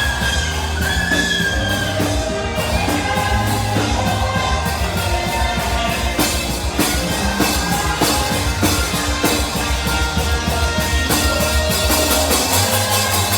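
Live worship band music: a saxophone playing a sustained, sliding lead melody over a steady bass line and drum kit.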